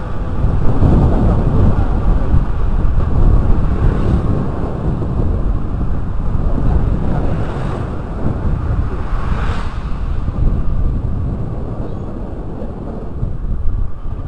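Wind buffeting the microphone of a camera on a moving motorcycle, over the steady running of the motorcycle's engine, swelling a few times along the way.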